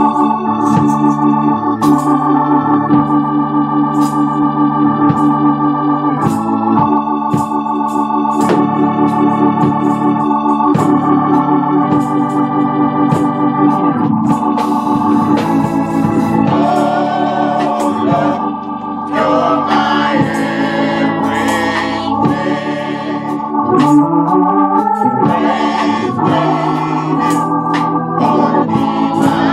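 Organ playing sustained gospel chords with a regular beat of sharp hits. About halfway through, voices of a small choir come in singing over it.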